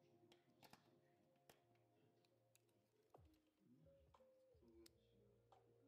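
Near silence: faint background music with a few small clicks.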